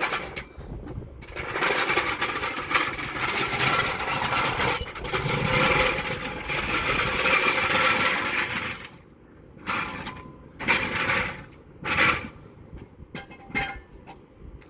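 A power tool running hard with a fast rattle for about eight seconds, then three short bursts, as used to undo fasteners on a car engine.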